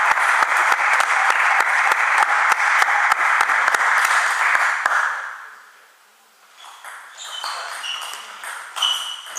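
Spectators applauding with scattered claps, fading out about five seconds in. After a short lull come light, ringing pings of a table tennis ball bouncing on the table.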